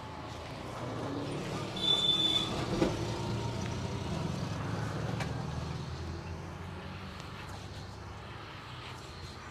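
Road traffic: a motor vehicle passing close by, its low engine rumble building over the first two seconds and fading away over the next several. A short high-pitched tone sounds about two seconds in.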